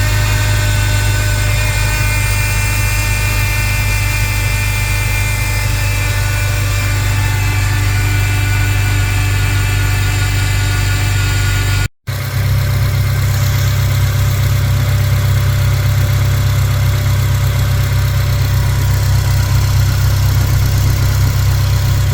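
2006 Acura RSX Type S four-cylinder engine idling steadily, with a thin, steady high-pitched whine over it from the power steering pump, typical of leaking power steering pump O-rings. The sound cuts out briefly about halfway through and resumes.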